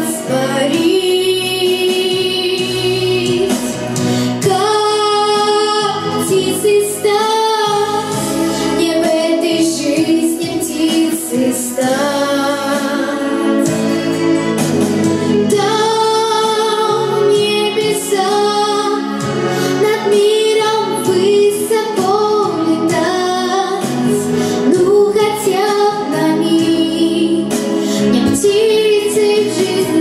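A young girl singing a song into a microphone, holding and bending long notes over a continuous instrumental accompaniment.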